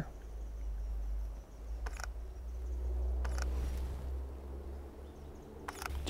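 Camera shutter firing: a few short clicks, about two seconds in, again at about three and a half seconds and just before the end. A steady low rumble runs underneath.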